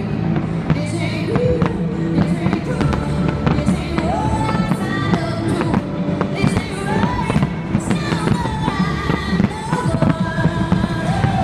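Pop music with singing, loud and continuous, with fireworks bangs and crackle throughout.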